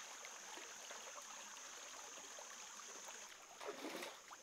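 Shallow rocky stream running over stones while feet wade through it, with a louder splash near the end as a foot kicks through the shallows.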